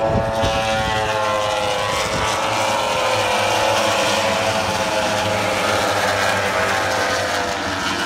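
A pack of racing motorcycles passing at high revs, many engine notes overlapping, each dropping in pitch as it goes by.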